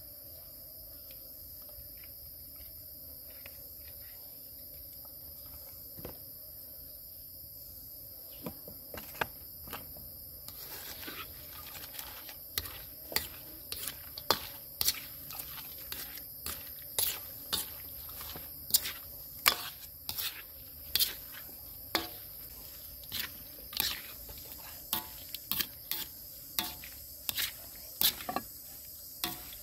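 Spoon stirring and tossing a moist salad in a metal bowl, with sharp clinks and scrapes against the metal, about one or two a second, starting about a third of the way in. Before that, a steady high buzz of crickets is the only sound.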